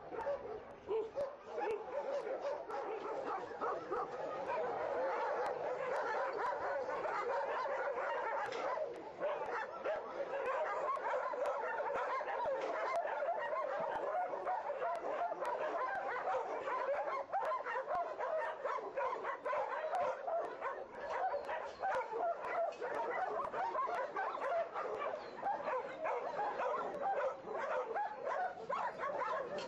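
A large group of shelter dogs barking and yelping at once, a dense, continuous chorus of overlapping barks with no pause.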